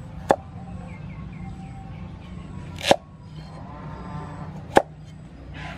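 Cleaver chopping carrot on a thick wooden chopping block: three sharp knocks about two seconds apart, the middle one preceded by a short crunch of the blade going through the carrot.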